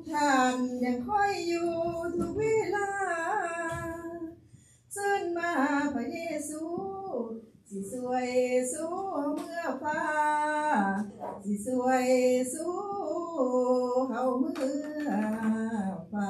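A small group of women singing a Lao-language hymn into microphones, in phrases with two short breaks: one about four and a half seconds in, one just under eight seconds in.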